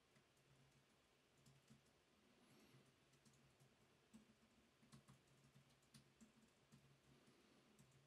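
Near silence with faint, scattered small clicks and taps of 3D-printer kit parts being handled during assembly, over a faint low hum.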